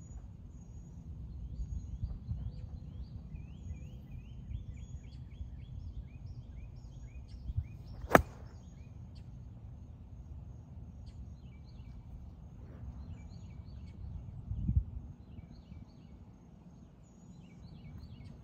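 A 58-degree wedge striking a golf ball: one sharp crack about eight seconds into a full swing. Wind rumbles on the microphone and birds chirp repeatedly throughout, with a dull low thump later on.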